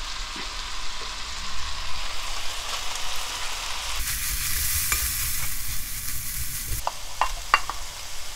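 Beef and oyster mushrooms sizzling in perilla oil in a frying pan, stirred with a wooden spatula. A few sharp clicks come near the end.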